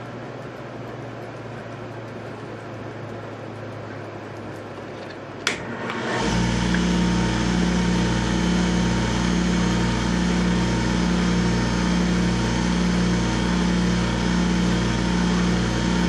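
A wood lathe is switched on with a click about five seconds in. It spins up within a second and runs steadily, with a low hum that pulses slightly about once a second, while a cloth of friction polish is held against the spinning pen blank to heat the polish in.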